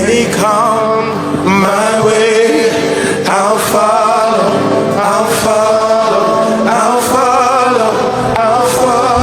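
Live gospel worship music: a male voice sings long held notes that waver in pitch.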